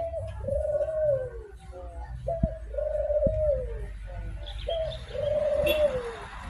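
Barbary (ringneck) dove, the 'burung puter', cooing three times at about two-second intervals: each call a short note followed by a long held coo that drops in pitch at the end.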